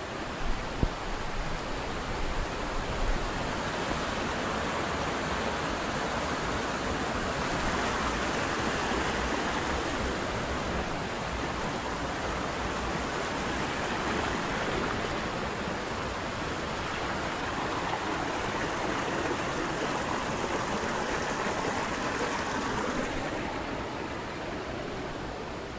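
A rocky mountain river rushing over boulders and small cascades: a steady hiss of flowing water. There are a few brief low thumps in the first three seconds.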